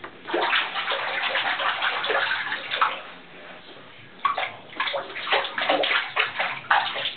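Bath water splashing and sloshing in a plastic baby bath tub as hands slap and stir it. The splashing comes in two bouts of quick, irregular splashes, with a short lull a little after halfway.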